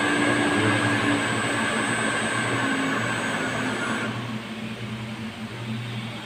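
Steady electric motor running, a low hum and whir with a high whine over it that stops about four seconds in, after which the sound eases slightly.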